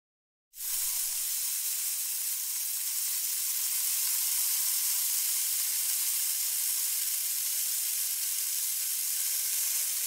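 A miniature metal shovel blade dragging through fine sand as it scratches out lines, a steady hiss that starts about half a second in.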